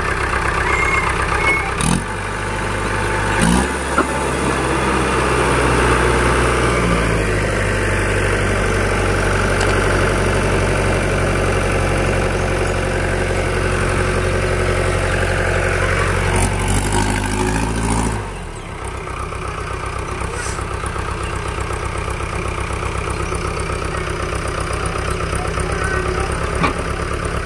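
Diesel engine of a Mahindra Arjun Ultra-1 555 tractor running at raised revs while the trailer's hydraulic ram tips its load. About 18 seconds in, the revs drop back to a steady idle.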